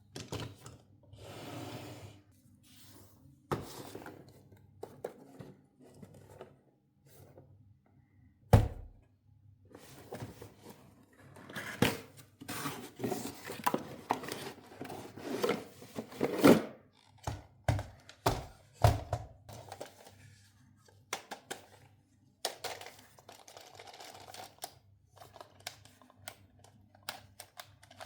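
Toy packaging being handled and opened: scattered knocks, clicks and rustling, with a loud thump about eight and a half seconds in and a busy run of handling noise soon after.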